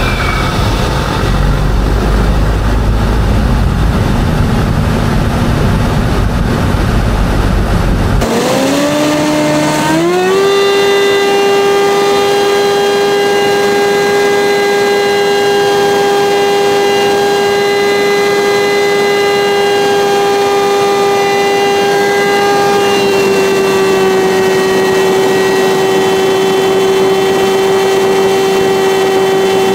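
Cessna 172 cockpit noise: the engine's low rumble drops off abruptly about eight seconds in as power comes back. A steady wailing tone then rises in pitch and holds for about twenty seconds before sliding down near the end, typical of the stall warning horn sounding through a stall and spin.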